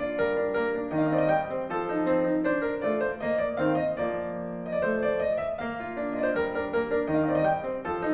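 Piano music playing a steady stream of notes over chords.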